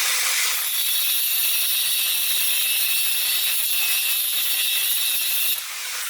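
Electric arc welding on a steel shaft extension: a steady, harsh crackling hiss, easing off slightly near the end.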